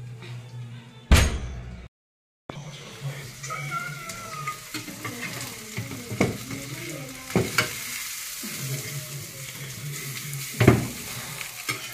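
Goat ribs sizzling in hot fat in an oven roasting tray as they are prodded and lifted with a long metal fork, with a few sharp clicks and knocks of the fork against the tray. A single loud clunk about a second in, as the oven door is opened.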